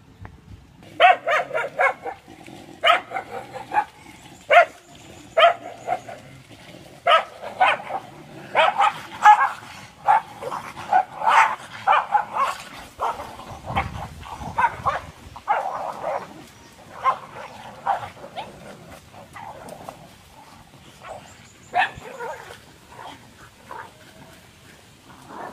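Dogs fighting, barking in many quick, short calls that come thick and fast through the middle and thin out near the end.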